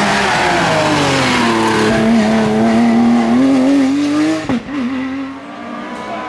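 Rally car engine at high revs, its pitch falling as it slows for about two seconds, holding, then climbing again under acceleration. A sharp crack comes about four and a half seconds in, and the engine then sounds quieter as the car moves away.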